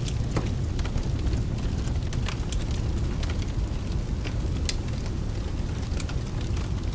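Steady rain mixed with a crackling fireplace: many scattered sharp pops and crackles over an even rain hiss, all over a strong, steady low rumble.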